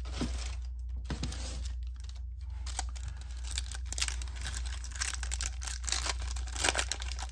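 A trading-card pack wrapper being torn open and crinkled by hand, in irregular rips and rustles, over a steady low hum.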